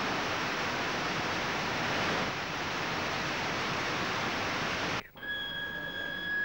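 Bessemer converter blowing, air forced through the molten iron giving a dense, steady rushing noise. About five seconds in it cuts off abruptly and a steady high-pitched whine takes over.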